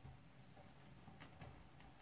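Near silence: a faint hum through the speakers with a soft click about a second in. This is typical of a stylus riding the lead-out groove at the end of an LP side, clicking once per turn of the record.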